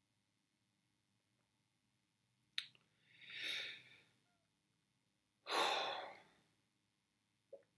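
A man breathing close to the microphone: a click, then a drawn breath, then a stronger exhaled sigh that starts suddenly and fades, with near silence before them.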